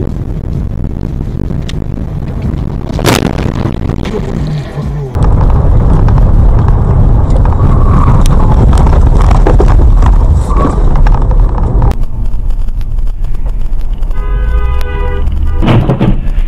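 Dashcam audio from inside moving cars: steady, loud road and engine rumble, with a sharp knock about three seconds in. Near the end a car horn sounds for about a second, followed by a thud.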